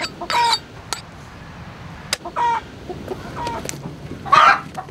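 Hens clucking: about four short calls spaced apart, the last near the end the loudest and longest, with a few sharp ticks in between.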